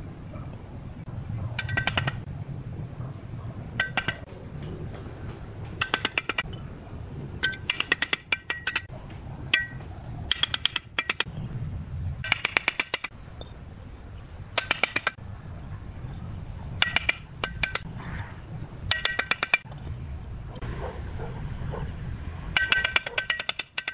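Fired clay bricks and a steel trowel clinking as the bricks are laid and tapped into place: about a dozen short bursts of quick, ringing clinks, over a low steady rumble.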